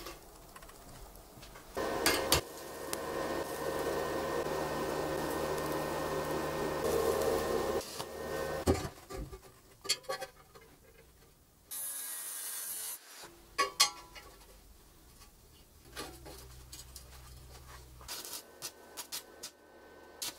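Metalworking on a welded steel tube frame. About six seconds of loud, steady machine noise with a buzzing hum, then scattered metal knocks, a brief hiss, a low hum, and a run of short sharp crackles as a steel bracket is tack-welded near the end.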